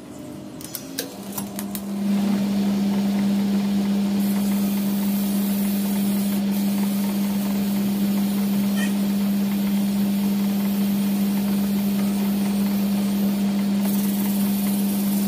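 A lathe starts up about two seconds in, after a few clicks, and then runs with a steady hum. Abrasive paper held against the spinning copper commutator of a power-tool armature hisses as it polishes the copper.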